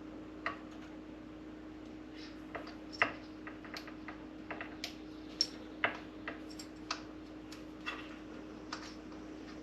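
Scattered light clicks and taps of small plastic parts and hoses being handled inside a coffee maker during reassembly, irregular and uneven, over a faint steady hum.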